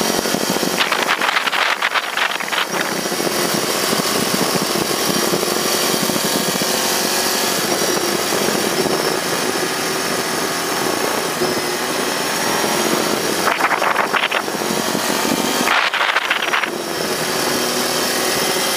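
Motorcycle running at road speed with steady wind rush over a bike-mounted microphone, and three short louder stretches of engine sound about a second in and twice more near the end.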